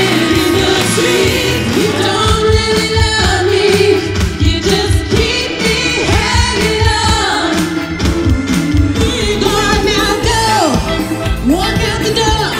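Soul and disco-style pop music with singing over a full band accompaniment and a steady beat.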